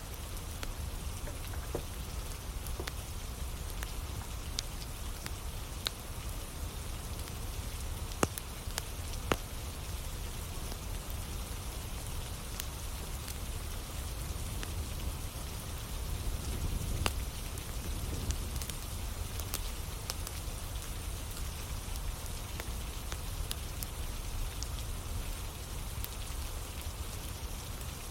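Steady rain falling, with scattered sharp crackles and pops from burning firewood in a campfire; a few louder pops stand out, about 8, 9 and 17 seconds in.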